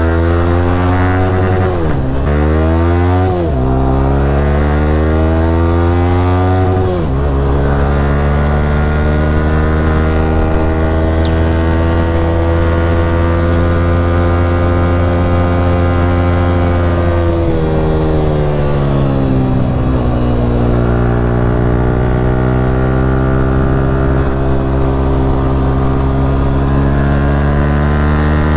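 Yamaha R15M single-cylinder engine running through a loud aftermarket exhaust while riding. The revs drop and climb again a few times between stretches of steady running.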